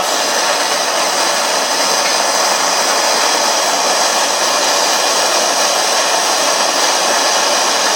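Gas blowtorch flame burning with a steady hiss, heating a brass cylinder up to silver-soldering temperature.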